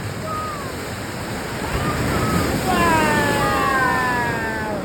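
Ocean surf washing in as a steady rush that swells louder a little past halfway. Several high, falling calls overlap over it near the end.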